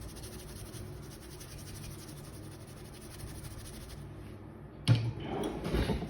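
Handling of a rusty hand tool and cleaning brush on a workbench: a sharp knock about five seconds in, followed by a second of scraping, over a low steady hum.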